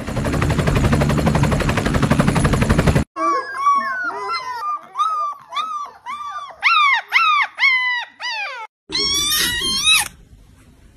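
A loud, rough, rattling noise for about three seconds, then newborn puppies squeaking and whining in a quick run of short rising-and-falling cries, and a kitten's meow near the end.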